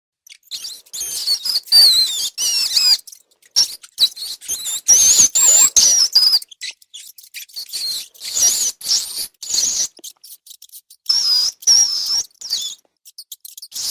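Rats squeaking: repeated high-pitched, wavering squeaks in bursts, with short pauses between them.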